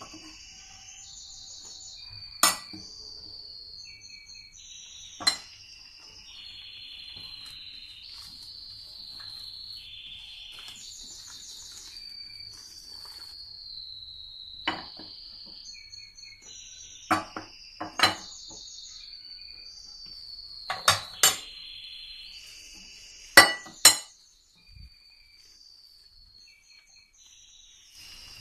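Sharp metallic clinks against stainless steel bowls, about nine in all, several in quick pairs, as dough is mixed by hand and flour is spooned in. Behind them runs a continuous high chirping and trilling that drops out near the end.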